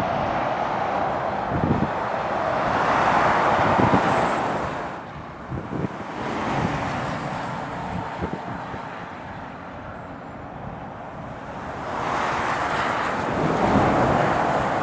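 Motorway traffic with lorries and cars passing at speed: tyre and road noise swells and fades. It is loudest about three to four seconds in and again near the end as a lorry passes close.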